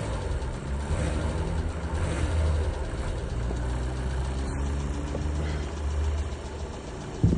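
Volkswagen Golf 7's 1.6 TDI four-cylinder diesel engine idling with a knock, which the owner suspects comes from worn crankshaft bearings. A brief thump near the end.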